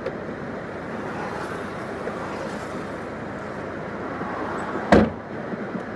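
Steady traffic noise, then a single car door slamming shut about five seconds in.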